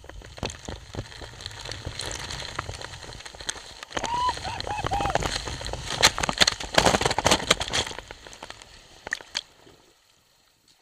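Water and air rushing past a helmet-mounted camera on a speed water slide, with a short wavering cry about four seconds in. Heavy splashing, the loudest part, follows about six to eight seconds in, then dies away.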